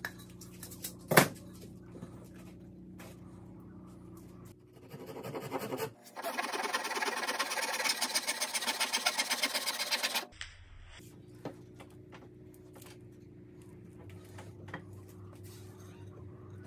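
Handsaw cutting through pine framing timber in fast, even strokes for about four seconds in the middle, after a single sharp knock about a second in. A faint steady hum lies under the rest.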